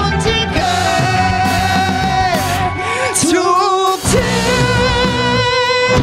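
Rock band playing live, with electric guitar, bass and drums under a woman singing long held notes with vibrato. The bass and drums drop out for about a second a little past halfway, then the full band comes back in.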